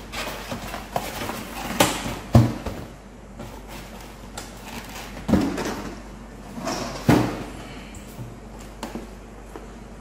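Cardboard packaging of a coffee machine being opened and lifted off: flaps scraping and rustling, with several sharp knocks and thumps, the loudest about two and a half seconds in.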